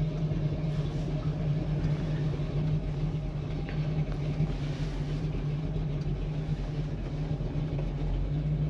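A 1968 Chevrolet Camaro driving along, its engine running with a steady hum, heard from inside the car.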